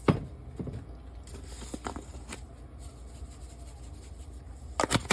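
Light kitchen handling sounds as Cajun seasoning is shaken from its container over the chicken marinade: a sharp click at the start, a few faint taps, and a louder double click near the end, over a low steady background.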